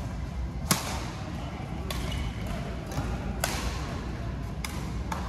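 Badminton rally: racket strings striking the shuttlecock in a string of sharp cracks, about one every second or so, the loudest about a second in. Between the hits there is a steady low hum of a large hall.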